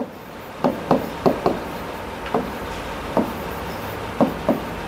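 Stylus tapping and knocking against the glass of an interactive touchscreen board while handwriting, about nine irregular sharp taps.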